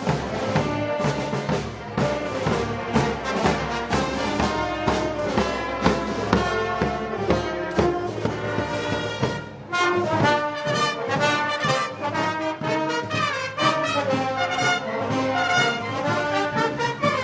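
Brass band playing Moros y Cristianos festival music, trombones and trumpets to the fore. The band moves into a new, higher passage about ten seconds in.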